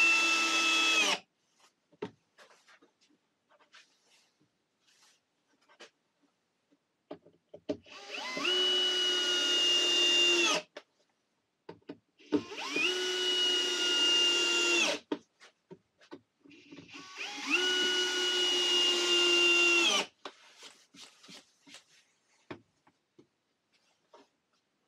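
Power drill driving screws into wood in four runs. Each run spins up to a steady whine and stops abruptly, and faint clicks and knocks of handling come between them.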